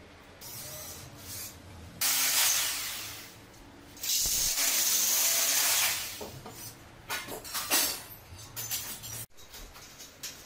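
Power drill boring into the ceiling in two bursts, about a second and a half and then two seconds long, the motor pitch wavering under load. A few short knocks and clicks follow.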